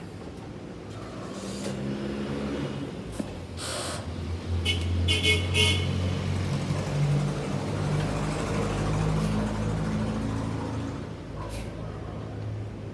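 A motor runs with a low hum that rises and falls in pitch and loudness, with a few short hissing spurts in the first half, the strongest about five seconds in.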